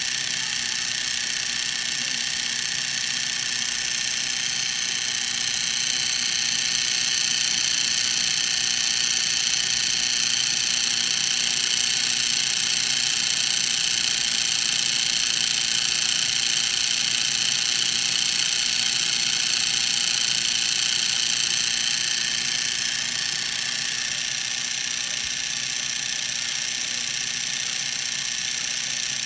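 Univex PC-10 8mm film projector running, its electric motor, belts and gears whirring steadily with a high-pitched whine. The gears have just been cleaned of old thick grease.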